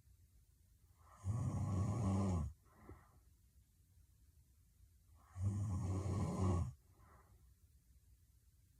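A woman snoring heavily in her sleep: two loud snores about four seconds apart, each a little over a second long, and each followed by a short, fainter breath.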